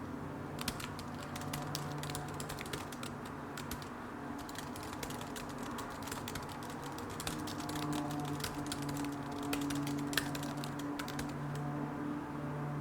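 Fast typing on a computer keyboard: a dense run of key clicks that thins out and stops near the end. Soft background music with held low notes runs underneath.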